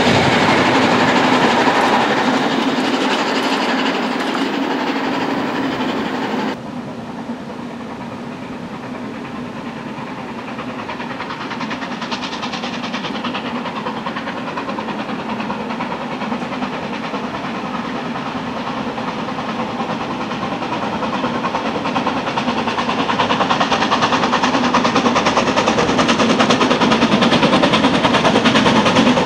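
A narrow-gauge train running away along the track, cut off suddenly about six and a half seconds in. Then a Harz Class 99 2-10-2T steam tank locomotive approaching under steam with its train, rapid exhaust beats growing louder toward the end.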